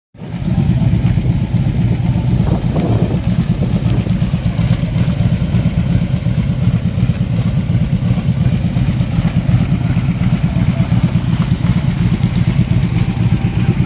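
Motorcycle engine running steadily at idle, a loud, even low rumble with no revving.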